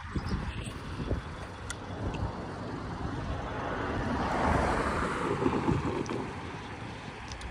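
A vehicle passing by, its rumble and hiss swelling to a peak about halfway through and easing off again.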